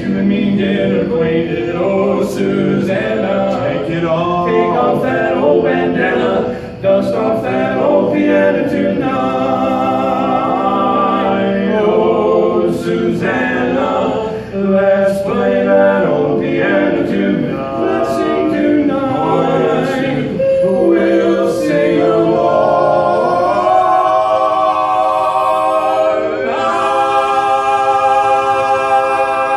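Male barbershop quartet singing a cappella in close four-part harmony. The voices slide upward twice near the end and settle into a long held chord.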